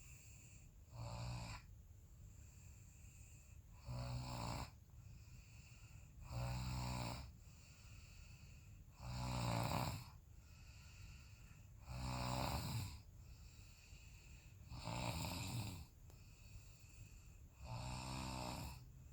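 A person snoring in an even rhythm: seven snores about three seconds apart, each lasting under a second.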